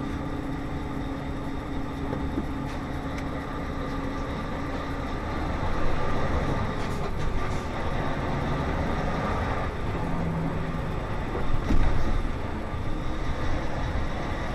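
Scania S520 truck's V8 engine running at low speed, heard from inside the cab, with a steady low drone for the first few seconds. Rumbling road noise runs under it, with occasional knocks and rattles, the loudest about twelve seconds in.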